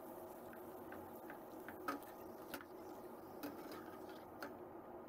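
Krupuk crackers deep-frying in hot oil, a faint steady sizzle with a few scattered sharp ticks.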